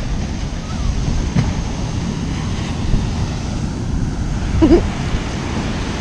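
Ocean surf breaking on the beach with wind buffeting the microphone, a steady rush.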